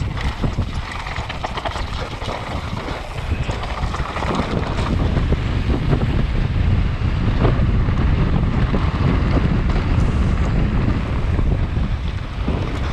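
Wind rushing over an action camera's microphone as a mountain bike descends at speed. Tyres run over gravel and the bike knocks and rattles over bumps. The noise grows louder about four seconds in.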